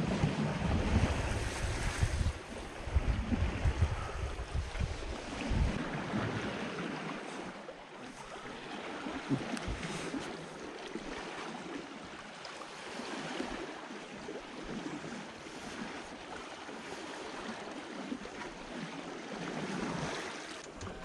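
Water rushing and splashing along the hull of a sailing yacht under way under sail, as a steady hiss of waves. Wind buffets the microphone with a low rumble for the first several seconds, then eases.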